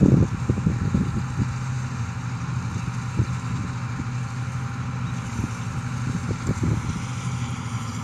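Combine harvester's engine running steadily as it cuts wheat, a constant hum with a faint even hiss above it. Wind buffets the microphone in low gusts, strongest in the first second.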